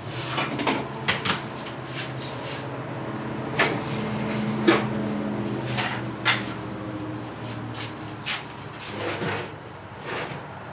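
Kitchen clatter of dishes and cupboard doors being handled: a string of sharp knocks and clinks over a steady hum that fades out about eight seconds in.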